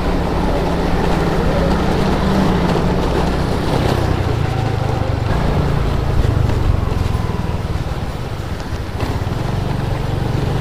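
Motorcycle engine running steadily while riding along a road, its note shifting a little and easing slightly near the end, with some wind noise on the microphone.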